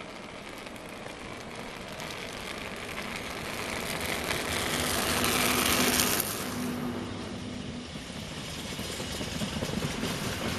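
Freightliner Class 90 electric locomotive hauling a container train, approaching and passing beneath, the rush of its passing loudest about six seconds in. Its container wagons then rumble by, growing louder near the end.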